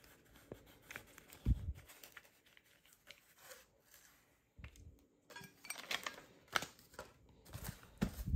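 Packaging being handled and unwrapped, with intermittent rustling, crinkling and tearing. There is a soft thud about a second and a half in and another near the end.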